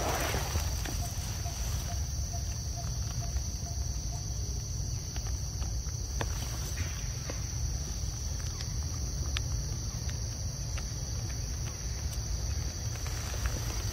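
Steady, high-pitched drone of insects calling in chorus, over a low rumble, with a few faint clicks.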